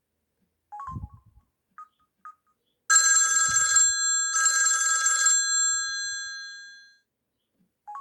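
Samsung SGH-F480 mobile phone playing a telephone-bell ringtone through its speaker: two bright rings, each just under a second long with a short gap, then ringing on and fading out. Before them come a few short beeps, and another beep comes at the end.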